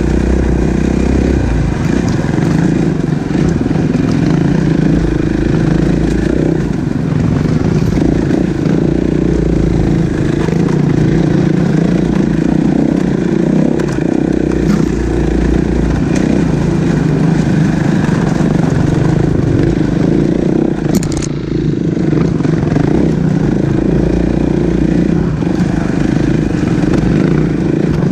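Dirt bike engine running steadily under throttle while riding, with a short dip in level about three quarters of the way through.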